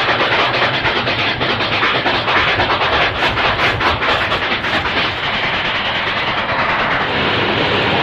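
New York Central steam locomotive No. 3128 passing close at speed: rapid, rhythmic exhaust chuffs over the steady rumble and clatter of its wheels on the rails, the beats less distinct in the last few seconds as the tender goes by.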